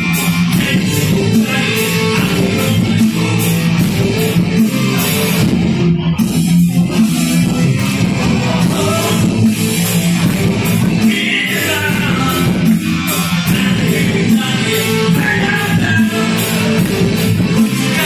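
Live rock band playing loud: a male singer over electric guitar and a steady drum beat with cymbals.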